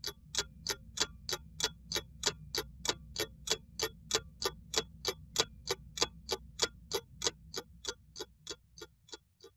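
Steady, clock-like ticking, about three ticks a second, over a faint low hum, closing out a rock recording; the ticks fade away near the end.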